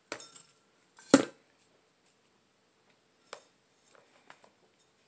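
Planter and potting tools being handled: a sharp knock about a second in, a softer one at the start, then a few faint light clicks.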